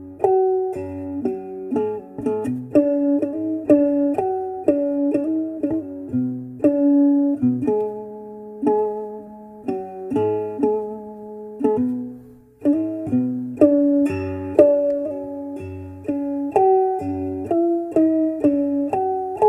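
Background music: a plucked string instrument, guitar-like, playing a melody of separate, quickly fading notes.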